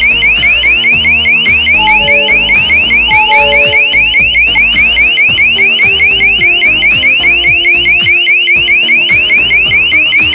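CPVAN CP7D wireless alarm hub's siren going off, as it does when a sensor is triggered: a loud electronic alarm of rapid rising sweeps, about four a second, that starts and stops abruptly.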